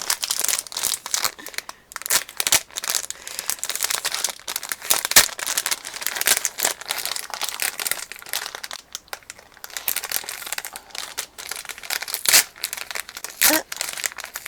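Plastic packaging crinkling and crackling as a squishy toy is handled and unwrapped, in a dense irregular run of crackles.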